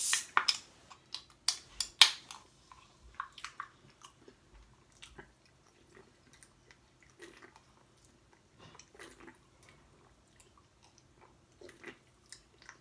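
A person drinking cola from a can, with soft gulping and swallowing sounds. A few sharp clicks and knocks come in the first two seconds, the loudest about two seconds in.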